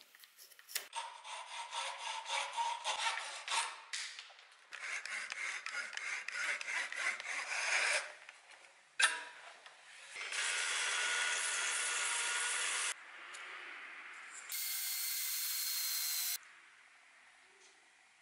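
Woodworking on a small piece of wood: several seconds of rhythmic hand-tool strokes rubbing across the wood, a sharp knock, then a power tool sanding it in two steady runs of a few seconds each, the second one higher-pitched.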